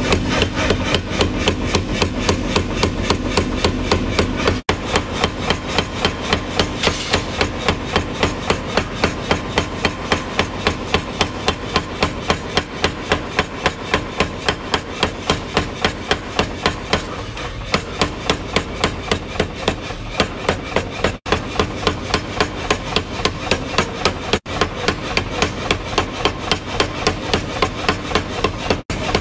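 Power hammer pounding a red-hot steel chef's knife blank on its die in rapid, evenly spaced blows, over the steady hum of the running machine.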